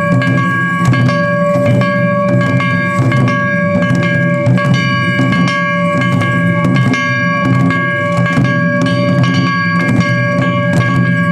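Japanese festival music: drums struck in a fast, dense rhythm under a steady high note that is held throughout, with a ringing, bell-like edge.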